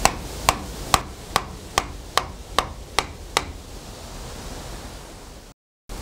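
A wooden mallet knocking a wooden wedge in along a log on a sawmill carriage, wedging the log tight: about nine sharp knocks, roughly two a second, stopping about three and a half seconds in.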